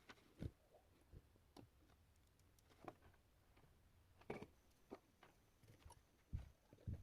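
Faint, irregular clicks and light knocks, about one a second, with the louder low knocks near the end.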